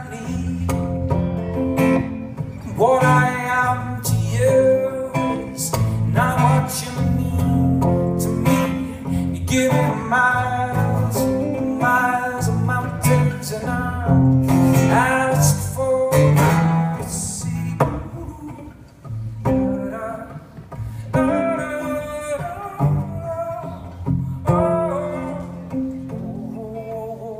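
Acoustic guitar strummed in a slow, steady chord pattern, played live as an instrumental passage between sung verses.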